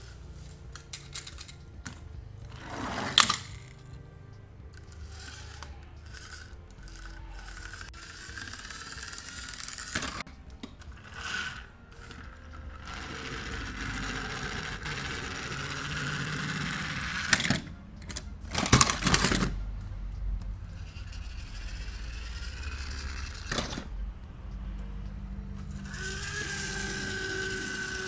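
Toy monster trucks clicking and knocking as they are handled and set down, with a rough rolling noise in the middle as a truck is run across a ribbed plastic mat. Near the end a whirring tone slowly falls in pitch.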